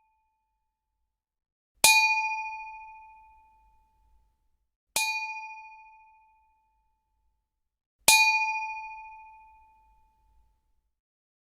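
Metal struck three times, each hit a sharp metallic ding that rings on with a clear two-note tone and dies away over a second or two. The middle hit is softer than the other two.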